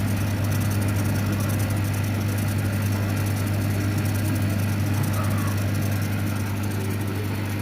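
Steady electrical hum of a running CO2 laser cutting machine and its equipment: a constant low tone with evenly spaced overtones, unchanging throughout.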